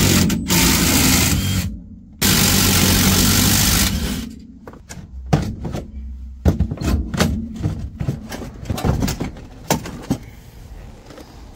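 A handheld power driver runs in two bursts of about two seconds each, starting and stopping abruptly, backing out the two 8 mm screws that hold the passenger airbag. A string of short plastic knocks and clicks follows as the airbag module is worked out of the dashboard.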